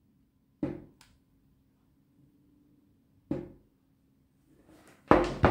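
Parts of a partly dismantled plastic-housed electric jigsaw being handled: a knock, a light click, and a second knock a few seconds later, with quiet gaps between. A louder knock comes near the end.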